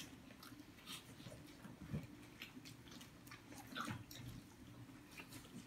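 Faint sounds of people eating with their bare hands from a shared spread: chewing, lip smacks and small clicks of food being picked up, with two soft thumps about two and four seconds in, over a low steady hum.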